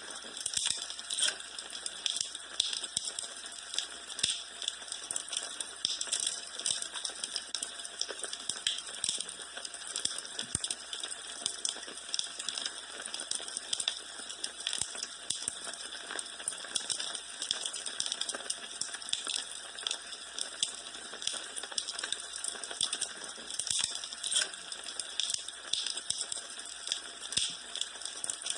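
Wood fire crackling in a fireplace: many small, irregular crackles and pops over a steady hiss.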